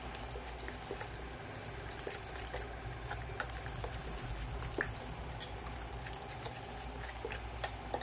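A spoon stirring thin pancake batter in a bowl, making light, irregular taps and clicks against the bowl.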